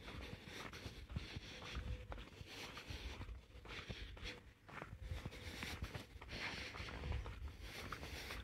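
Footsteps of a person walking along a street pavement, with low uneven rumbling and faint outdoor hiss.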